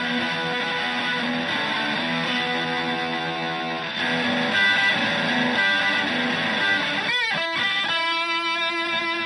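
Stratocaster electric guitar played through a Zonk Machine fuzz pedal into a Fender Twin-style amp: fuzzy sustained notes and chords. It gets louder about four seconds in, has a quick wavering, bending passage near seven seconds, and ends on a held chord.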